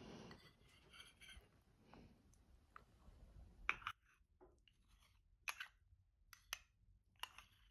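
Metal spoon scooping shepherd's pie out of a ceramic ramekin: soft scraping at first, then several sharp clinks of the spoon against the dish in the second half.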